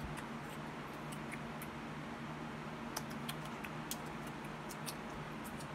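Electric pedestal fan running steadily in a small room, a low hum under a soft rush of air, with a few faint clicks scattered through the middle and latter part.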